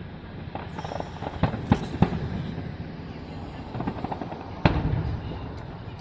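Aerial fireworks shells bursting: a few sharp bangs in the first two seconds, a patch of crackling, then a louder boom about four and a half seconds in with a trailing rumble.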